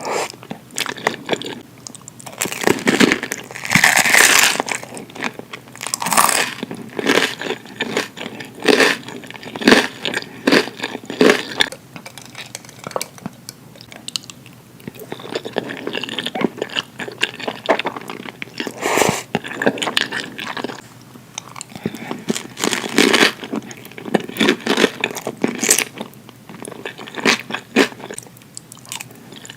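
Close-miked eating of spaghetti: irregular wet chewing and mouth clicks, with a longer, louder burst of noise about four seconds in.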